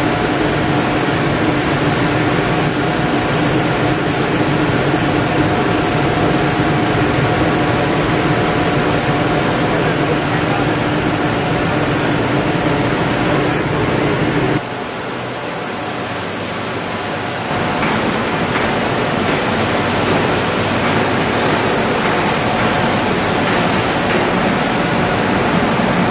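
Lithium battery recycling line running: a loud, steady machinery noise with a low hum. It drops suddenly about halfway through and rises again a few seconds later.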